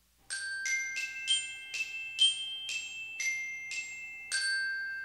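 A short jingle of bright, bell-like struck notes in the manner of a glockenspiel: about ten single notes, roughly two a second, each ringing briefly, with the last note held and fading out near the end.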